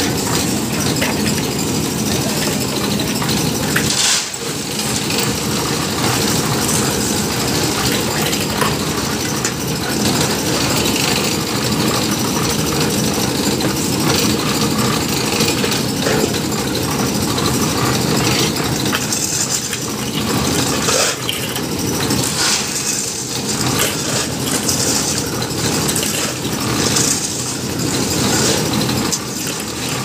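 Engine-driven concrete mixer running steadily as its drum turns, with the clatter of shovels scraping into crushed stone and metal pans knocking together.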